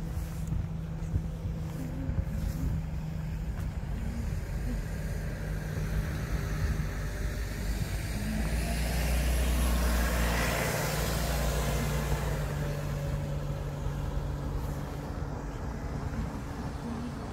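Road traffic running steadily alongside, with one vehicle passing close: its tyre and engine noise swells to a peak about ten seconds in and then fades away.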